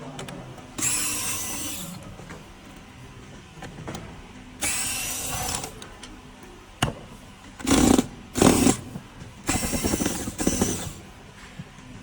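Handheld power drill-driver running in short bursts of about a second, several times over, as screws are driven out during disassembly.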